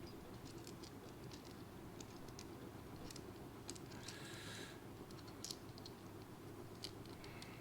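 Faint scattered small clicks, with a brief scraping rustle about four seconds in: a pocket-size EDC flashlight and its rechargeable battery being handled as the battery is refitted.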